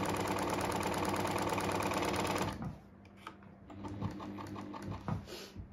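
Pfaff 1229 sewing machine, just oiled, running at a steady speed with a rapid, even clatter that stops abruptly about two and a half seconds in. A few light clicks and knocks follow.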